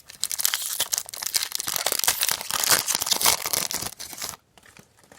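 A trading card pack wrapper being torn open and crinkled, a dense crackling that stops about four seconds in.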